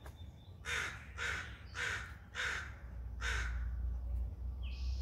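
A crow cawing five times in a row, a short call about every two-thirds of a second.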